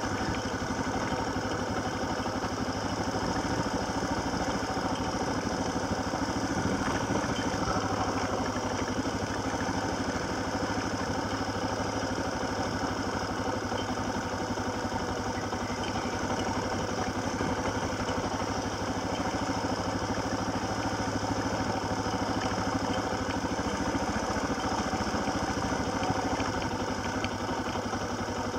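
Small off-road vehicle's engine running steadily as the vehicle rolls along a snowy dirt trail, with no change in pace.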